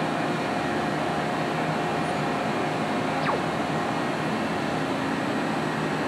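Steady machine hum and air noise of a car assembly hall. A brief faint falling whistle sounds about three seconds in.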